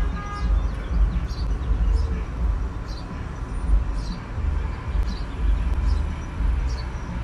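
Low, uneven rumble of street traffic and idling vehicles, with faint voices.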